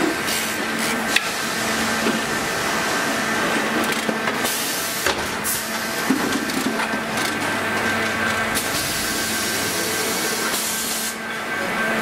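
Factory assembly-floor noise: a steady machine hum under a continuous rustle, with scattered clicks and knocks of parts and hand tools being handled.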